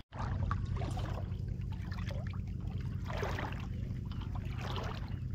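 Shallow seawater sloshing and swishing around a person's legs as he wades through seagrass, in irregular surges about once a second, over a steady low rumble.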